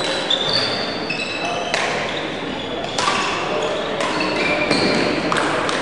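Badminton hall ambience: many short, high-pitched squeaks of court shoes on the hall floor from players on the surrounding courts, a few sharp knocks, and a low murmur of voices, all echoing in the large hall.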